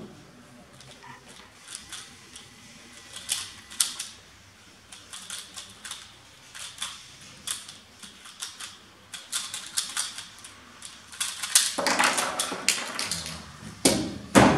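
Rapid, irregular plastic clicking of a 3x3 speedcube being turned at speed-solving pace, getting denser toward the end. Near the end, a single loud slap as the hands come down on the stack timer to stop it.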